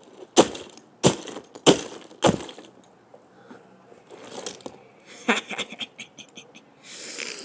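A brick smashes down on a Furby toy four times in quick succession, about every half second, cracking its plastic shell and innards. Then lighter clatter and rattling of broken plastic pieces, and a short rustle near the end.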